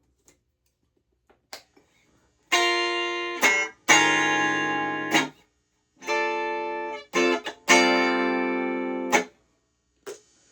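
Stratocaster electric guitar strumming chords in a repeated phrase, played twice: two short chords, then a longer ringing chord that is cut off short.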